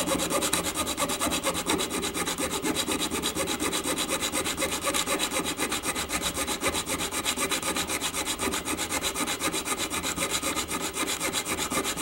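Bare hacksaw blade, held in a gloved hand, sawing through a steel nail in quick, even short strokes, metal rasping on metal. The nail is the one fastening an electrical outlet box to the wall stud.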